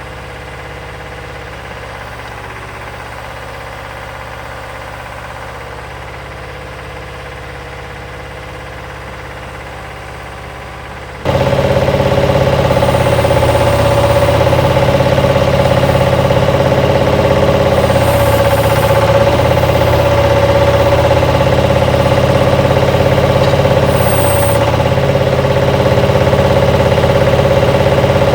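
Bobcat loader engine running steadily. About 11 seconds in it abruptly becomes much louder, with a steady whine over the engine note.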